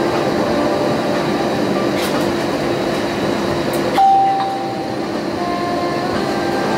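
Cabin noise of an Airbus A320-200 rolling along the runway after landing: a steady rumble of engines and wheels with a low hum. A short clear tone rings out about four seconds in, and a fainter one follows about a second later.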